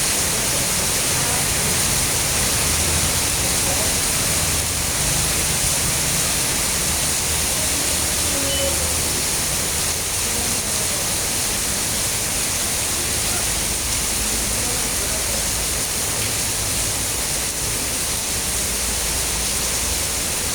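Heavy rain pouring steadily, a constant dense hiss, with a low, uneven rumble beneath it.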